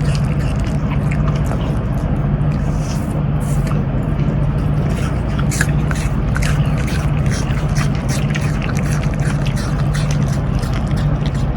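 A dog chewing apple: crisp, irregular crunches over a steady low hum.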